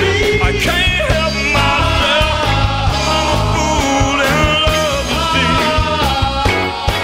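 A band playing a Motown-style song: lead singing over bass and a steady drum beat.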